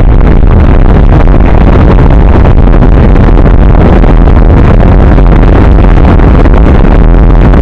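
Steady, loud, distorted wind roar on the microphone of a camera riding on a moving motorcycle, with road and engine noise buried in it.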